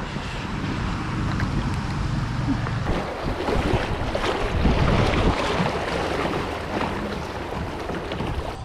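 River water rushing and splashing around a kayak as it runs down a riffle, with wind buffeting the microphone. The rush is loudest about halfway through.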